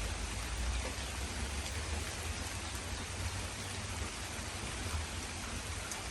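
Steady rain falling, an even hiss with faint scattered drop ticks and a low rumble beneath.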